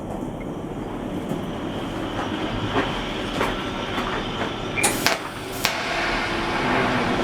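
Electric arc welding: a steady hiss from the arc, with scattered sharp clicks and a few louder snaps about five seconds in.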